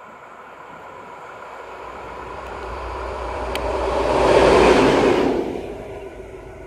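ST44 (M62-type) diesel locomotive running light with its two-stroke V12 diesel engine as it passes close by. The engine and wheel noise grow steadily louder, peak about four to five seconds in, then fade quickly as it goes away.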